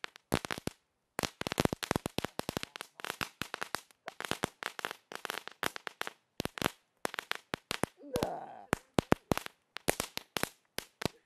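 Ground firework crackling: runs of sharp pops and bangs, many a second, broken by short pauses, the last of them coming right at the end.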